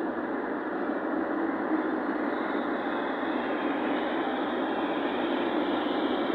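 Steady noise from a vehicle on the move, an even rush of engine and road sound with no separate events.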